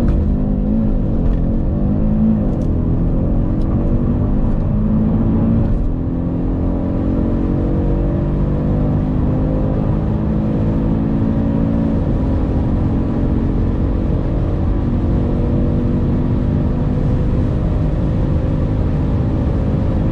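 Audi RS3's turbocharged five-cylinder engine under full-throttle acceleration, heard from inside the cabin. It pulls up through the gears of its dual-clutch gearbox, with quick upshifts in the first few seconds and then longer pulls, shifting about six and twelve seconds in.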